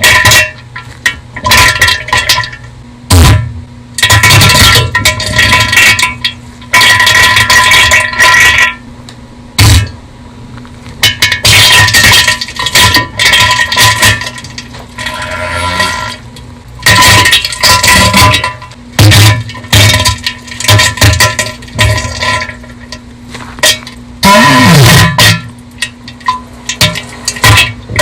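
Bass-boosted, distorted fart and diarrhea sound effects, coming in loud irregular bursts with short gaps between them.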